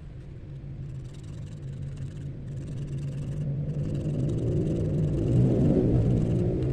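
A low, steady motor rumble that swells louder toward the end, over faint scratching of a fishing-hook point being rubbed on sandpaper.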